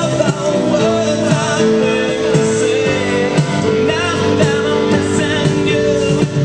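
Live band playing a song on electric guitar and keyboard, with singing, loud and continuous.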